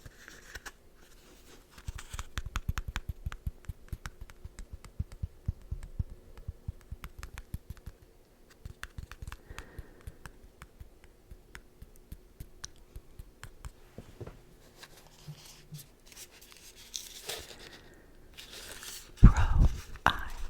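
Packaging being opened by hand: tearing and crinkling, with a quick run of light taps and scratches over the first several seconds, then sparser ticks, and a loud thump near the end.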